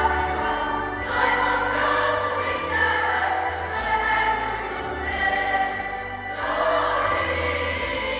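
Church choir singing a Christmas hymn in parts, over instrumental accompaniment with bass notes that change about once a second.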